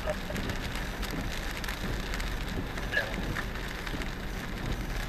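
Heavy rain falling on a moving car's windshield and roof, with scattered drop ticks over the steady low rumble of tyres on a wet road.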